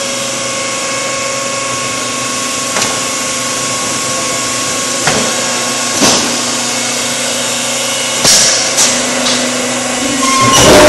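Concrete block making line running: a steady hum of electric motors with several steady tones, broken by a few sharp knocks at irregular spacing as wooden pallets move along the chain conveyor. Right at the end a much louder machine noise starts up.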